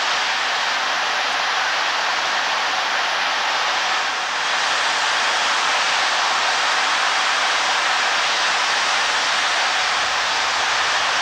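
Steam tank locomotive No. 4 standing with steam hissing from it, a loud steady hiss with no exhaust beats, dipping briefly about four seconds in.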